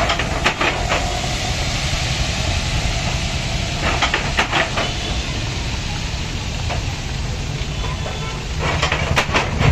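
Hot oil poured from an iron kadai onto chilli powder and potatoes in an aluminium pot, sizzling with a steady hiss as it froths up. Clusters of louder crackles come just after the start, about four seconds in, and near the end.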